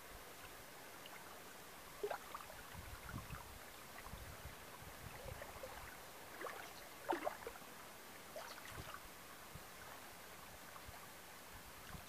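Faint water sounds from a small paddled boat: soft splashes and gurgles of a paddle in the water, every couple of seconds, with a few low knocks, over a steady light hiss.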